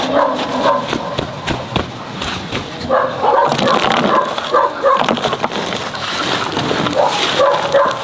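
Loose soil and gravel scraping and pattering as it is pushed by hand and tossed into a hole around a wooden post. Over it, an animal calls in several short bursts, a few seconds in and again near the end.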